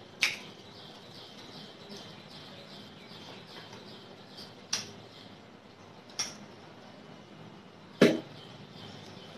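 Close-miked eating sounds of rice and chicken curry being eaten by hand: four sharp, wet mouth smacks while chewing, the last one the loudest.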